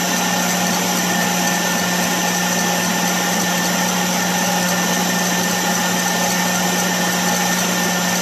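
Electric stand mixer running at high speed, its wire whisk beating egg whites in a stainless steel bowl for Italian meringue. The motor gives a steady hum and whine that never changes.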